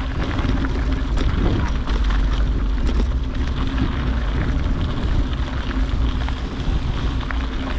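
Wind rushing over the microphone while riding a bicycle, with a steady low hum of the tyres rolling on the trail.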